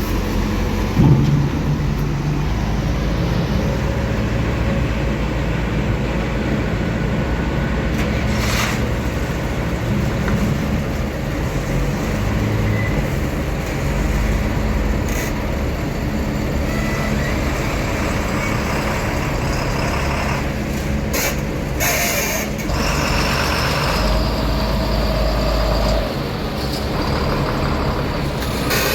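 Heavy vehicle's diesel engine running steadily, with a few short noisy bursts about eight seconds in and again a little past twenty seconds.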